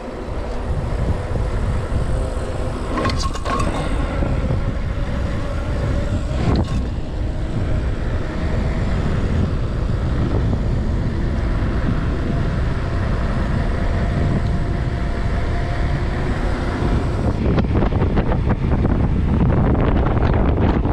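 Mountain bike riding on asphalt: wind buffeting the microphone and the tyres rolling make a steady low rumble, with a faint hum that slowly rises in pitch as speed builds. Two sharp knocks come about three and six and a half seconds in.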